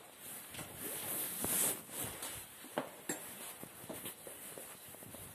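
Scattered light knocks and clicks with a brief rustle about one and a half seconds in: objects being handled and set down.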